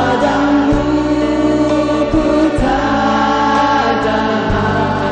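A group of singers singing a pop song together into microphones over amplified backing music, with sustained vocal lines and a bass line that changes notes every second or so.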